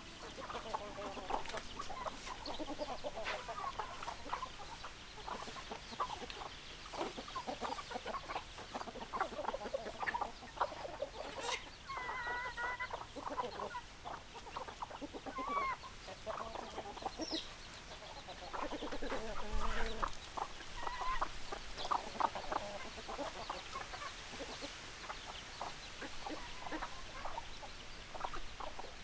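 A flock of domestic chickens clucking continuously, many short overlapping calls from several birds at once.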